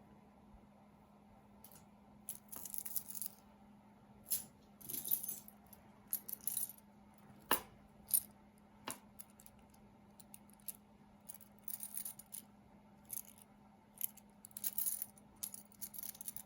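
Costume jewelry clinking and jangling as it is handled and sorted, in short spells of small metallic clicks and rattles starting about two seconds in, with two sharper clicks around the middle.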